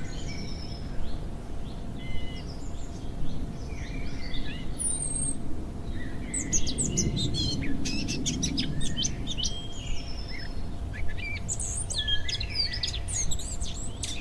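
Several birds chirping and calling, with many short, overlapping chirps and whistles, over a steady low rumble of outdoor background noise.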